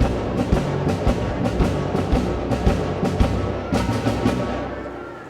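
Orchestral music with a steady timpani beat, about two strokes a second, fading away near the end.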